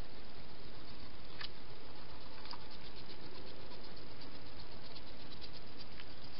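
Steady hiss with scattered small clicks and a run of faint ticks in the second half, from a hedgehog moving and feeding at a dish.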